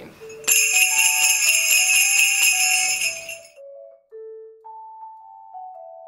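Sleigh bells on a wooden handle jingling in a steady rhythm over a melody of clean mallet-like notes. The bells stop about three and a half seconds in, and the melody carries on alone, softer.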